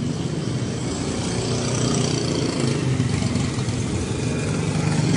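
A car engine running close by, its hum growing steadily louder.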